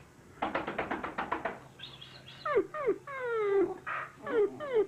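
A dog whining: first a quick stuttering run of short yips, then a string of drawn-out whines that each fall in pitch.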